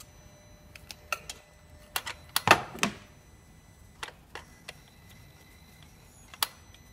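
Scattered sharp clicks and light metallic knocks from a compression tester's hose and threaded adapter being handled and unscrewed from a spark-plug hole. The loudest cluster of clicks comes about two and a half seconds in.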